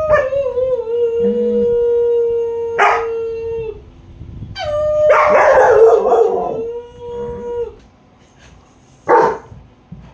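A woman howling in long held notes while two German Shepherds howl along with her; the howls overlap in a dense chorus around the middle. One short bark near the end.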